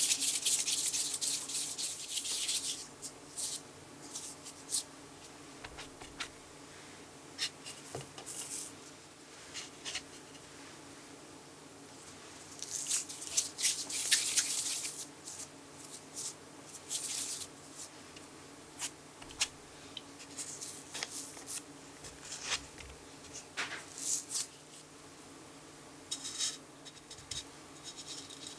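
Hands rolling and pressing soft sweet potato glutinous rice dough between the palms: soft skin-on-dough rubbing and light pats. There is a longer bout of rubbing at the start and another about halfway through.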